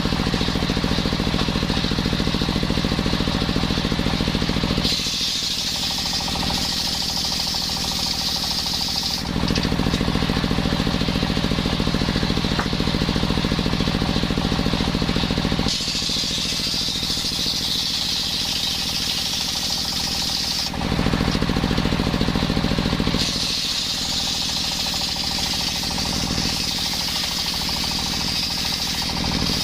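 Motor-driven circular saw running and cutting coconut wood. Between cuts it runs with a steady low hum; three cuts, starting about five, sixteen and twenty-three seconds in, each add a high-pitched whine from the blade in the wood lasting four to six seconds.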